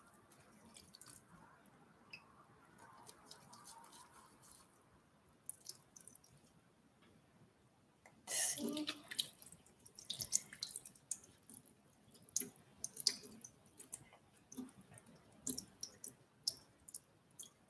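Water from a bathroom sink tap rinsing a makeup brush: faint at first, a short gush about eight seconds in, then scattered splashes and drips as the brush is worked under the stream.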